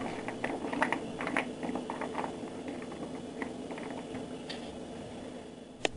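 Frozen french fries clicking and scraping on a bare metal cookie sheet as they are spread out by hand, in quick irregular ticks that thin out after the first few seconds, with one sharper click near the end. A faint steady hum lies underneath.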